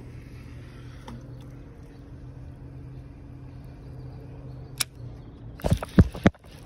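A steady low hum, then a sharp click a little before five seconds in. About a second later comes a quick run of loud thumps and knocks: handling noise on the phone's microphone as the spinning rod is swung into a cast.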